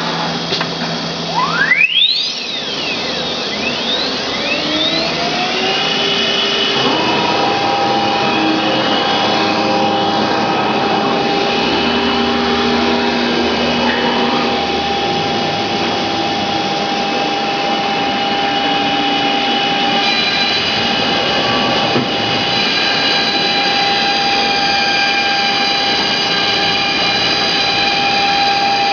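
ATC CNC router spindle running while machining MDF, with a steady high whine over machine noise. About two seconds in the spindle whine rises sharply, as it does when the spindle spins up to speed, and then holds steady.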